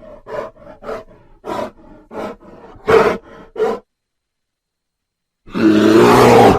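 Bear vocalizations standing in for an extinct cave bear: a run of about six short, rhythmic grunts, roughly one every two-thirds of a second, the loudest about three seconds in. After a pause of under two seconds, a loud, drawn-out roar starts about a second before the end.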